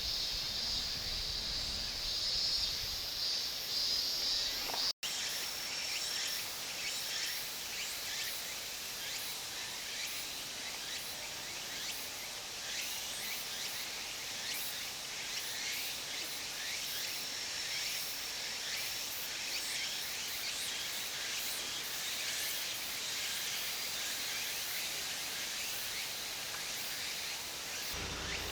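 Outdoor insect chorus: a steady high buzz that stops at a brief dropout about five seconds in, then many high chirps with now and then a thin trill.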